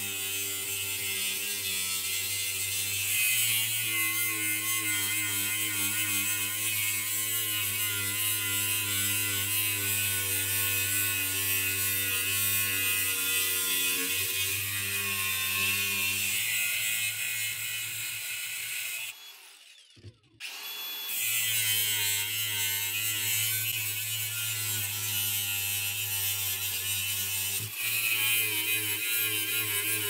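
Angle grinder with a thin cutoff disc cutting through high-carbon steel plate: a steady motor whine under a harsh grinding hiss. It drops away for about two seconds roughly two-thirds of the way through, then resumes.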